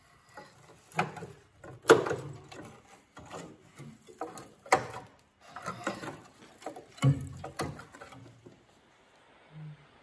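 Rusted sheet-steel fragments of a car's rotten sill clattering and scraping as they are pulled out by hand: irregular metallic clanks and rattles, loudest about two seconds in and again about seven seconds in, stopping near the end.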